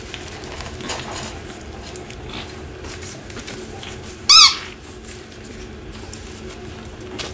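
A Shih Tzu puppy biting a squeaky toy ball: one loud, warbling squeak about four seconds in, lasting under half a second. A few faint scuffles of puppies moving about are heard around it.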